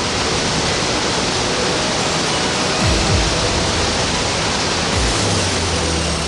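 Waterfall rushing: a steady, dense roar of falling water. Low music notes come in about five seconds in.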